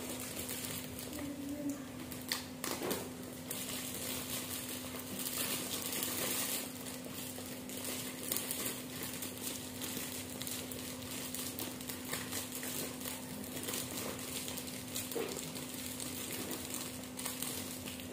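Clear plastic bag stuffed with snack packets crinkling and rustling in the hands as its neck is twisted shut with a metal twist tie, with irregular sharp crackles throughout over a steady low hum.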